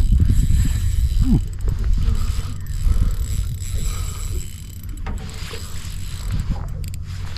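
Spinning fishing reel being wound with a mechanical ticking, over a steady low rumble.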